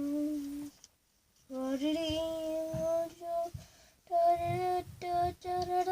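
A young girl singing a wordless tune to herself: a short note, then a long held note, then a string of short repeated notes near the end.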